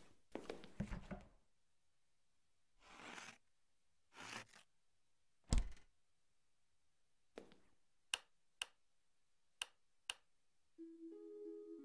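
Quiet kitchen handling sounds: a few soft knocks and two brief rustles, then a single heavy thump about halfway through. After that come a run of sharp clicks as a stove control knob is turned, and held musical notes begin near the end.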